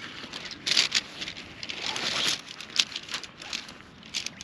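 Tent fabric and a plastic ground tarp rustling and crinkling in several short bursts as a dome tent is unpacked from its carry bag.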